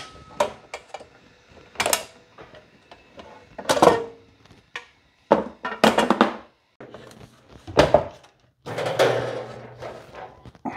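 A series of separate clanks and thunks as the metal extension tables of a DeWalt DW735 thickness planer are folded up against the machine, some with a short metallic ring. Near the end a galvanized metal can is handled, with a rattling scrape.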